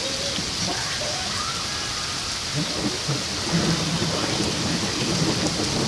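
Heavy rain pouring down in a steady, dense hiss, a little louder in the second half.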